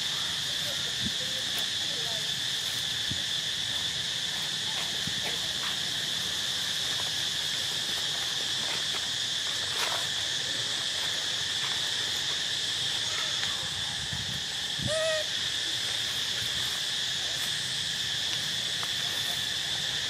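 Steady chorus of insects, a continuous high-pitched drone. A few faint clicks and one brief call about fifteen seconds in.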